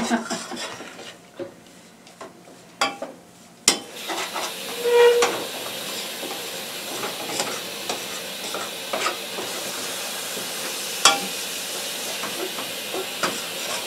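A spoon stirring and scraping a thick flour-and-oil roux in a stainless steel saucepan, with sharp clicks of the spoon against the pot. From about four seconds in, a steady sizzle of the roux frying over the gas burner joins the stirring.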